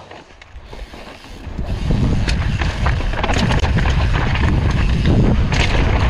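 Mountain bike riding down a rough dirt trail: wind buffeting the microphone and tyres and frame rattling over the ground, with many small knocks. The noise swells about a second and a half in and stays loud.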